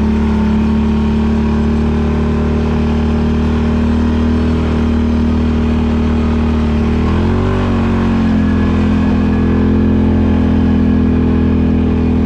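Can-Am Renegade 800's V-twin engine running steadily at riding speed, heard from on the machine. About seven seconds in its pitch briefly dips and rises again, then holds steady a little higher.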